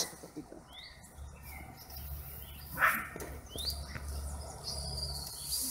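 A few short, high, rising chirps, then a thin steady high tone near the end, over an intermittent low rumble.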